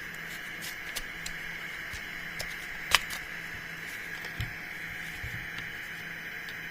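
Scattered light clicks and taps from handling an electronic instrument and tools on a workbench, with one sharper click about three seconds in, over a steady background hiss.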